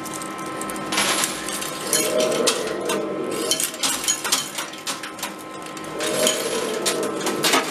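Metal coins clinking and clattering inside a coin pusher arcade machine, with many scattered sharp clicks. Two short hums come about two seconds in and again near six seconds.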